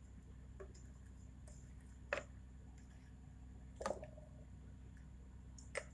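Three light knocks of glass test tubes and a glass funnel being handled in a test-tube rack, the second followed by a brief ring, over a low steady hum.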